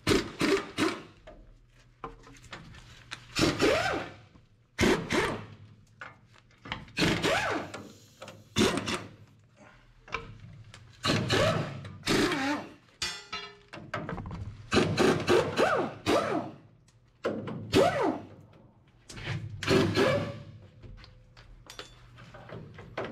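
Air impact wrench hammering in short bursts, about ten of them, as it runs the nuts off the bolster spring bolts of a truck's Hendrickson Haulmaax suspension.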